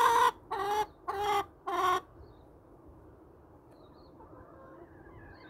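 Chicken calling: a long drawn-out squawk ends right at the start, followed by three short squawks about half a second apart.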